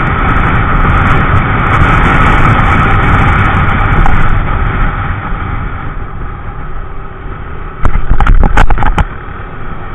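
Riding noise from a scooter on the move: steady wind and road rush with the engine running underneath. About eight seconds in comes about a second of loud knocks and thumps.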